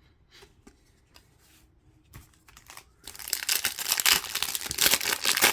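A few faint clicks of cards being handled, then, about three seconds in, loud crinkling and tearing of a foil hockey-card pack wrapper being torn open.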